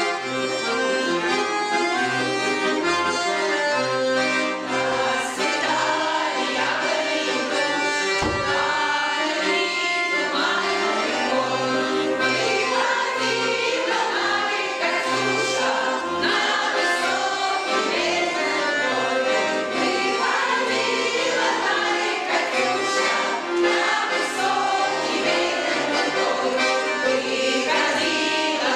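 Accordion accompanying a group of women singing together, a Russian wartime song, with the accordion's bass notes keeping a steady beat under the voices.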